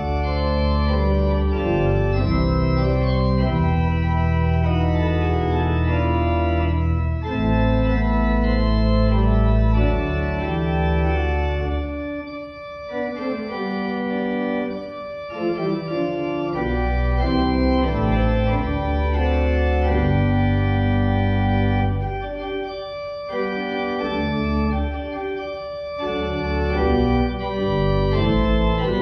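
Organ postlude closing a church service: held chords over deep pedal bass notes, with the bass dropping out twice for a few seconds.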